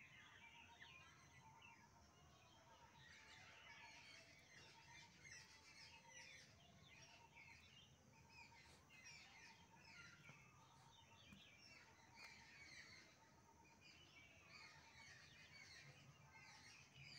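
Faint chirping and twittering of many small birds in the background.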